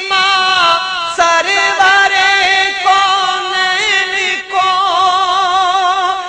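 A male naat reciter sings a long, wordless, ornamented vocal line with wavering vibrato, over a steady held tone underneath.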